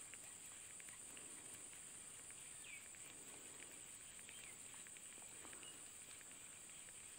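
Near silence: faint outdoor ambience with a steady high buzz, scattered soft ticks, and two brief chirps near the middle.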